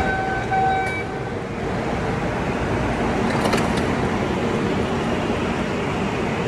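MBTA Red Line subway train standing at the platform. A short tone signal sounds for about a second, and a clatter of the doors shutting comes about three and a half seconds in, over the train's steady motor and ventilation noise.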